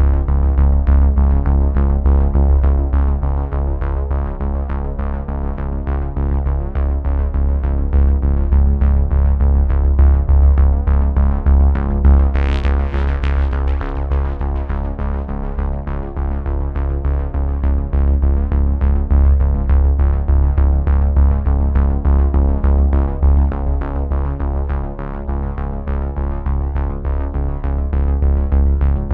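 Background synthesizer music with a strong, steady bass and a fast regular pulse; a short swelling sweep about twelve seconds in.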